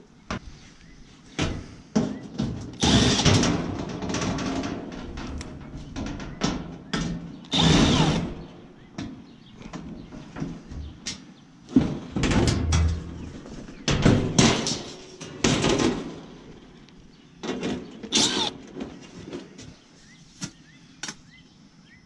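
Sheet-metal service panel of an outdoor air-conditioner condenser being worked loose and pulled off by hand: irregular bangs, scrapes and rattles of the thin metal, with sharp clicks between them.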